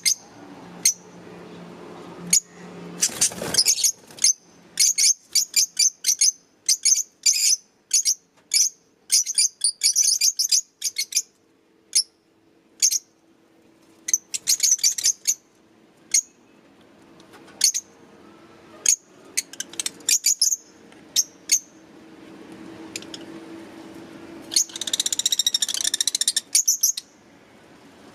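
Fischer's lovebirds chirping: many short, sharp, high-pitched chirps in quick runs, with a longer burst of rapid chatter near the end.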